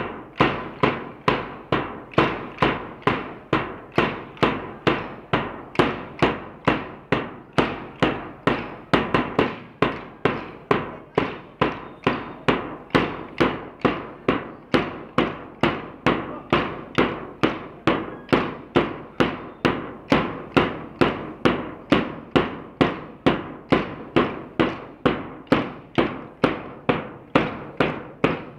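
Many pairs of hand-held drill dumbbells clacked together in unison by a large group, a sharp clack about twice a second in a steady, even rhythm.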